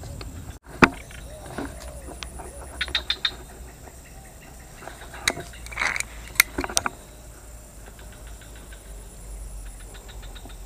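Scattered sharp clicks and light knocks from handling a fishing pole and its line, over a steady low rumble; a small cluster of clicks about three seconds in.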